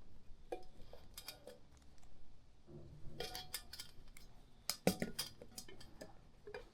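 Scattered light clicks and taps of small hard objects being handled, a few close together about three seconds in and a sharper pair near five seconds.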